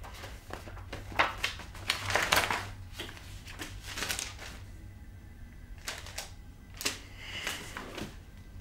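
Paper rustling as sheets and ring-binder pages are flipped and pulled about by hand, in irregular crisp sweeps, densest about two seconds in. A low steady hum runs underneath.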